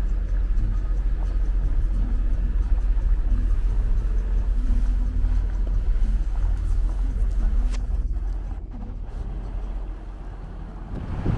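Steady low rumble of a vehicle driving, with a faint engine hum, easing off over the last few seconds.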